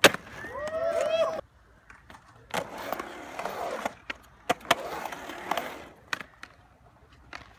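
Skateboard riding a concrete bowl: polyurethane wheels rolling on concrete in two long runs, with sharp clacks of the board and trucks striking the coping and deck. A loud clack opens, followed by a brief wavering voice.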